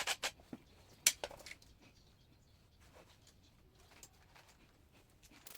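Scattered metallic clicks and clinks of hand tools on bicycle drivetrain parts. The loudest click comes about a second in, followed by a few quick ones, then sparse faint ticks.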